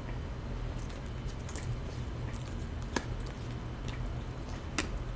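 Low steady room hum with a scattering of small, faint clicks and soft handling noises.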